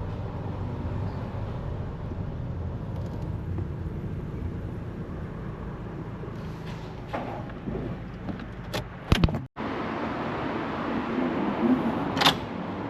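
Car engine and road noise heard from inside the cabin, steady for about nine seconds. Then come a few sharp clicks and the rumble cuts off suddenly, leaving a thinner background with another click near the end.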